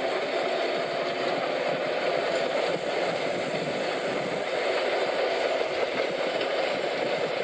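Small LEGO electric motor driving a plastic LEGO Technic Walschaerts valve-gear linkage and wheels, running steadily with an even mechanical whir and rattle.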